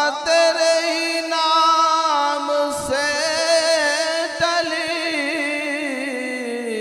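A man's solo voice singing a naat without instruments, holding a long wavering, ornamented note with a short break about three seconds in, then sliding down in pitch near the end.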